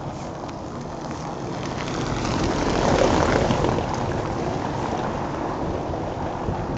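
A car driving past on a cobblestone street, its tyre noise swelling to a peak about three seconds in and then easing back to a steady traffic hum.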